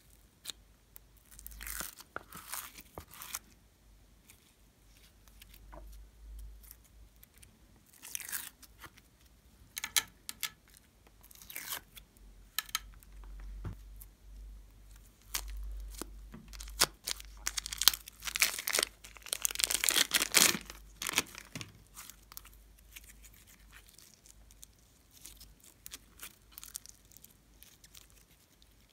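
Hands working foam-bead craft pieces, piped clay and slime in a glass tray: crackling, crinkly tearing and sticky clicks in scattered bursts, with the longest and loudest crackling about two-thirds of the way through.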